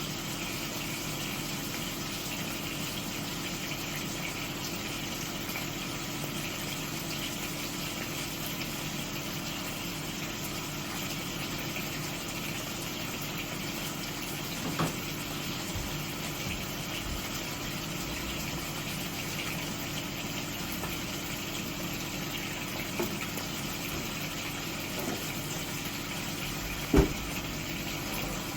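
Steady droning hum of a running kitchen appliance, with a constant low tone and a hiss. A few light knocks sound over it, the loudest near the end.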